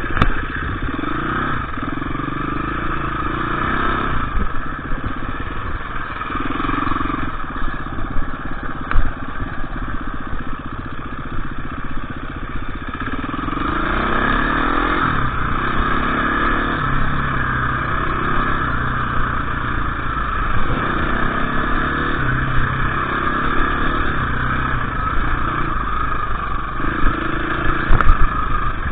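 KTM EXC 350 dirt bike engine running under way, its revs rising and falling again and again as it is ridden. There is a sharp knock near the end.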